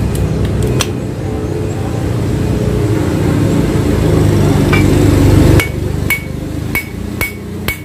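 An engine runs, growing louder, then stops abruptly about two thirds of the way through. Steady hammer blows on steel follow, about three a second and ringing, as a new bearing is driven into place.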